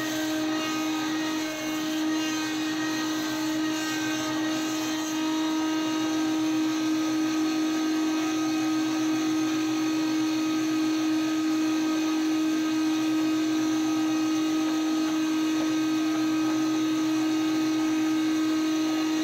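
Cleereman Lumber Pro thin-kerf band mill running and sawing through a log: a steady mechanical whine over a constant hum.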